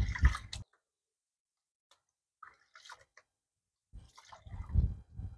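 Water sloshing and splashing in a gold pan as paydirt is shaken and washed down toward the concentrates. It comes in two bouts, a short one at the start and a longer one starting about four seconds in, with a near-silent pause and a few faint drips between them.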